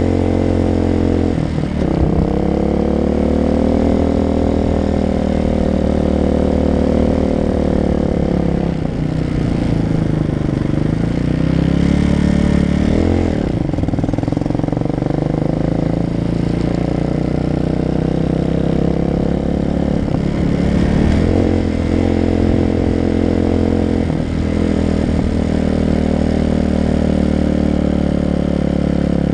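Motorcycle engine running while riding, its pitch dropping and climbing again several times as the throttle is rolled off and on through gear changes.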